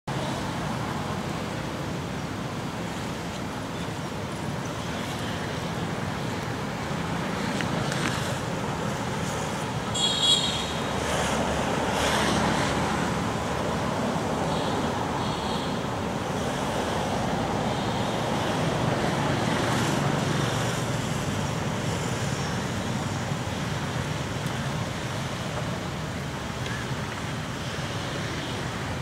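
Steady outdoor background noise like distant road traffic, with a brief high-pitched call about ten seconds in.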